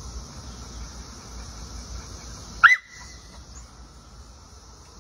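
A pit bull-type dog gives one short bark about halfway through, its pitch rising and falling.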